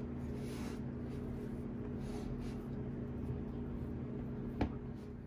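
A spoon pressing and scraping a crumbly cookie-and-chocolate no-bake cake base into a metal cake pan, soft scratchy strokes over a steady low hum, with one sharp click near the end.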